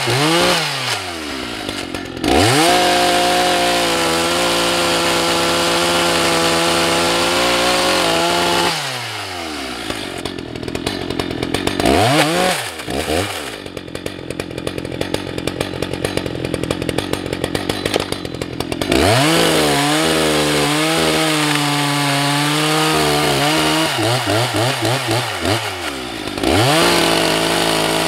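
Husqvarna 181 SE two-stroke chainsaw cutting ash logs at full throttle in several bursts. The revs drop and climb again between cuts, with a spell of idling in the middle.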